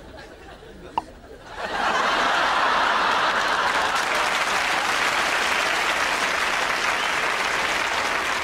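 Studio audience applause. It starts suddenly about two seconds in, after a single short click, and then goes on loud and steady.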